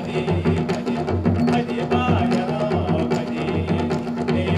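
Live folk music for a stage dance: a drum beating about twice a second under a steady drone and a wavering melody line.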